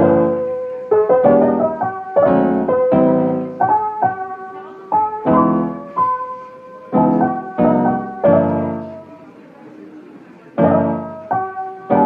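Piano music: single notes and chords struck at a slow, unhurried pace, each ringing out. About nine seconds in, the playing thins almost to nothing, then the chords come back.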